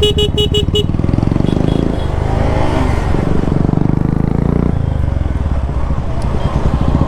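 Single-cylinder motorcycle engine running, its note rising and falling between about two and five seconds in. Five quick beeps sound at the start.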